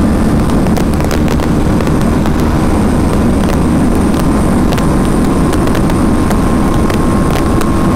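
BMW G 310 RR sport motorcycle's single-cylinder engine running steadily at high speed, around 150–160 km/h, under a heavy, even rush of wind.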